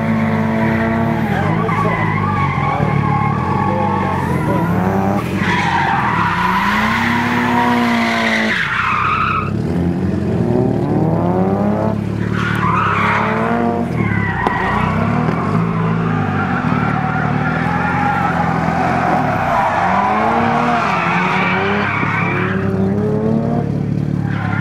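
Mitsubishi Lancer Evolution IX engine revving up and down hard as the car drifts, its revs rising and falling repeatedly. The tyres screech in several long stretches as the car slides sideways.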